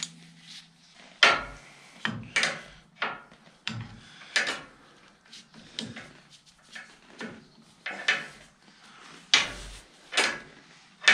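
Hydraulic pipe being handled and test-fitted to the log splitter frame: a string of about a dozen irregular knocks and clanks, with short quiet gaps between.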